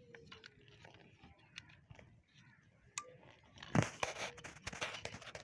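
Handling noise as an Ethernet cable is plugged into a small plastic PoE adapter: faint clicks and rustles, a sharp click about three seconds in, then a louder stretch of rough scraping and rustling lasting about a second and a half near the end.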